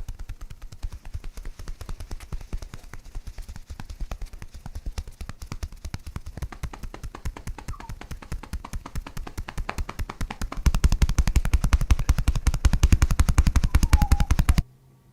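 Handheld percussive device rapidly and evenly tapping on the patient's body, a fast machine-like train of thuds. About ten and a half seconds in it gets louder and stronger, then stops abruptly near the end.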